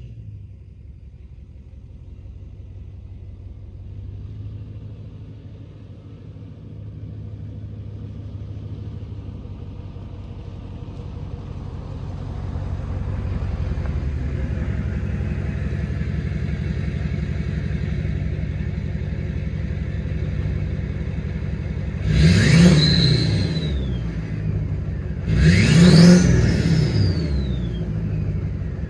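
2007 LBZ Duramax diesel V8, fitted with a KBD 63.5 mm 10-blade billet-wheel turbo, running steadily and then revved sharply twice near the end. Each rev brings a high turbo whistle that climbs and then falls away as the engine drops back.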